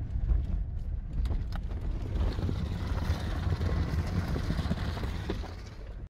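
Inside the cabin of a Subaru Forester driven slowly over a rough road: a steady low rumble of engine and tyres with scattered knocks from the car body, fading out near the end. The car is being driven on a punctured tyre.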